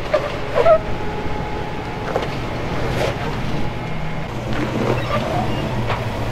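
4x4 engines running at low speed as the vehicles crawl up a steep bare-rock climb, with a few short knocks and clicks scattered through.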